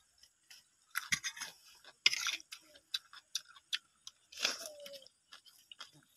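Close-up eating sounds: chewing raw petai beans and laksa noodles, with many small wet mouth clicks and crunches and a few short hissy slurps, the loudest about two seconds in and again about four and a half seconds in.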